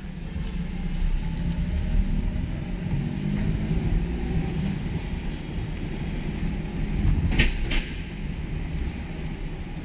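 Car driving slowly, heard from inside the cabin: a steady low engine and tyre rumble, with two short sharp noises close together about seven and a half seconds in.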